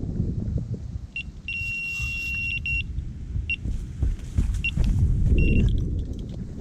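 Electronic carp bite alarm signalling a run: a short beep, then a steady high tone for about a second, then several separate beeps, as a fish takes line. Wind rumbles on the microphone throughout.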